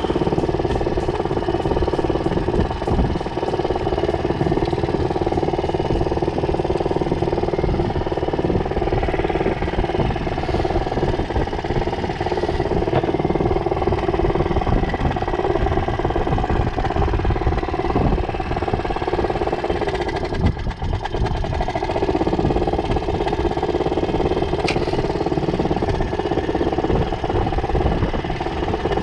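A small 2-horsepower outboard motor runs steadily, driving the boat along. Its level dips briefly about twenty seconds in.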